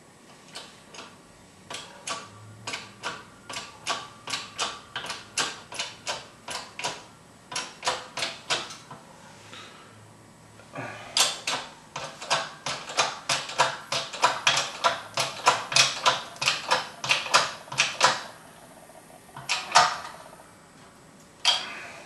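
Rapid light metal-on-metal tapping, about three taps a second, then after a short pause a louder, faster run of about four a second, with a few single taps near the end. It comes from a steel stem being driven by a handled driver into a machined aluminium knob as a tight press fit.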